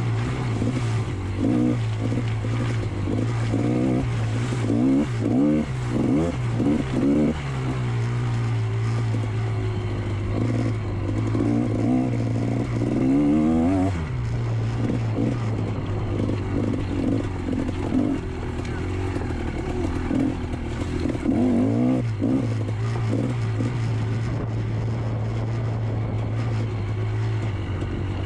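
GasGas MC125 single-cylinder two-stroke motocross engine being ridden, revving up and down continually through the gears, with sharp rises in pitch about halfway through and again near 21 seconds.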